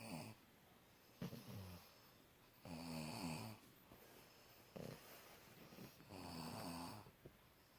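Faint snoring: a snore every second or two, each a rough pitched drone that drops in pitch, with breathy hiss.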